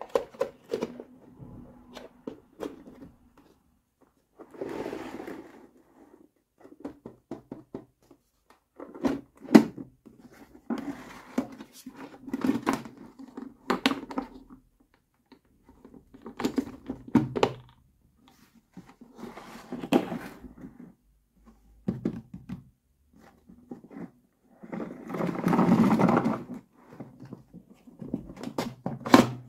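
Hard plastic toy case and its toy doctor-kit pieces handled by hand: irregular clacks, knocks and scrapes with short pauses between, and a longer scraping rub near the end.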